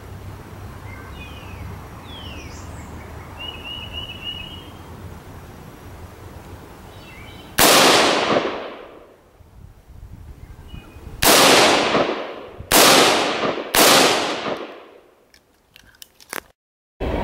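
AR-15 rifle firing four shots: one, then after a pause three more about a second apart, each ringing out after the crack. A few faint clicks follow near the end.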